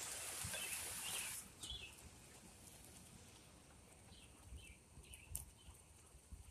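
A brief rushing hiss at the start fades out within about a second and a half. After it come faint, scattered bird chirps over a quiet outdoor background, with a few soft low thumps.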